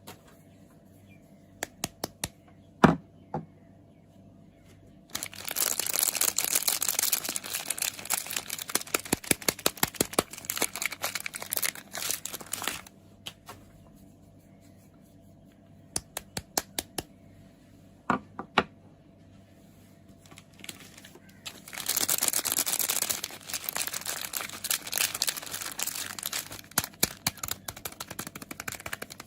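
Soap packaging being unwrapped: wrapping crinkled and torn open in two long stretches of dense crinkling, between quieter spells of scattered sharp clicks and taps.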